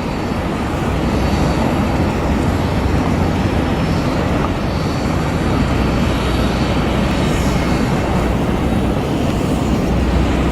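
Airliner engines heard across the airport as a steady, loud rumble that swells slightly in the first second and then holds.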